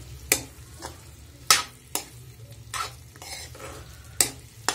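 Steel spatula scraping and knocking against a kadhai as potatoes and soya chunks are stir-fried in masala, with a light sizzle. There are about seven sharp scrapes at uneven intervals over a steady low hum.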